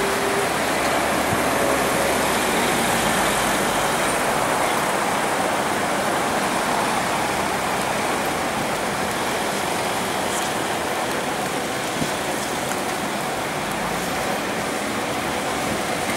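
Steady city street traffic noise, with cars passing through a junction.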